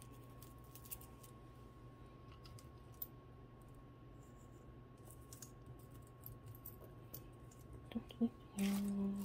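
Faint, scattered light clicks of costume jewelry being handled over a low steady room hum, with a brief hummed "mm" from a woman near the end.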